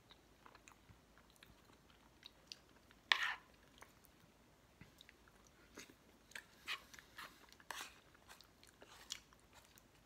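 A person chewing a mouthful of MRE cheese tortellini in tomato sauce: faint, scattered wet mouth clicks and smacks, the loudest about three seconds in, with more of them bunched near the end.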